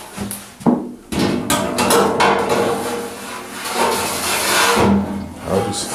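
Stainless-steel ash pan clattering and scraping against the steel body of a grill as it is slid into place, with a sharp metal knock just under a second in.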